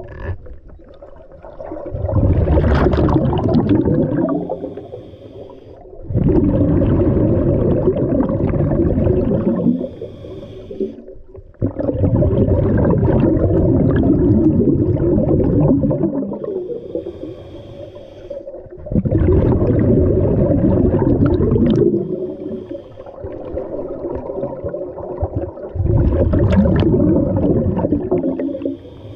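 Scuba diver breathing through a regulator underwater: five long bursts of exhaled bubbles, each lasting three to four seconds, with quieter inhalations between them.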